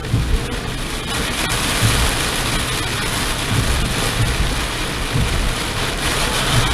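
Torrential cloudburst rain pouring down: a loud, dense, steady hiss of heavy rain, with low rumbling swells coming and going underneath.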